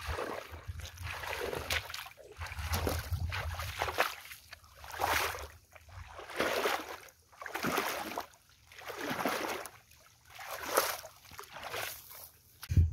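Wading footsteps through shallow muddy water, a splash and slosh with each stride, coming about every second and a half.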